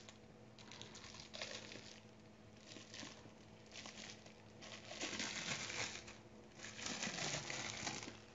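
Plastic bubble wrap being peeled off the bottom of a block of soap. It comes in several short, faint crinkling rustles, the longest about five seconds in.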